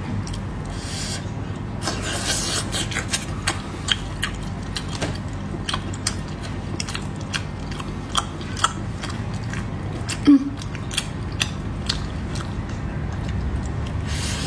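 Cooked sea snails being handled and picked apart by hand: scattered sharp clicks of the shells, with a louder click about two-thirds of the way through, over a steady low hum.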